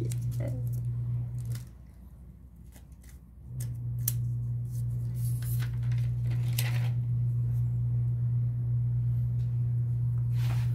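Scattered small clicks and rustles of a smartphone being handled, over a steady low hum that drops out for about two seconds near the start.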